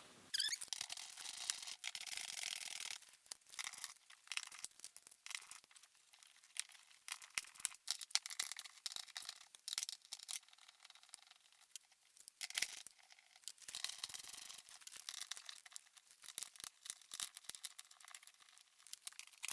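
Plastic interior trim being pulled free and handled: rustling and scraping with many small clicks and crackles.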